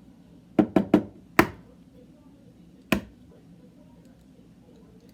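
An egg knocked against the rim of a mixing bowl to crack it: four quick sharp taps within about a second, then one more tap about a second and a half later.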